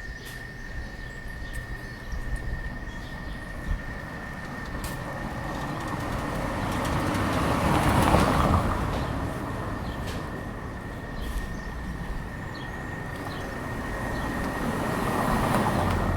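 Street traffic: a vehicle passes by, swelling up and fading away about halfway through, and another approaches and passes near the end. A steady, thin, high tone sits under the traffic noise.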